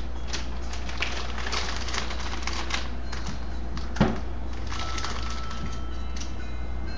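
Wrapping paper crinkling and rustling in irregular bursts as it is folded around a cat, with one louder thump about four seconds in.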